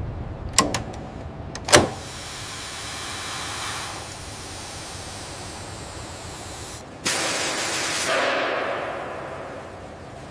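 A couple of sharp metallic clicks, then pressurised air hissing steadily out of a line; about seven seconds in, a sudden louder burst of hiss starts and fades away.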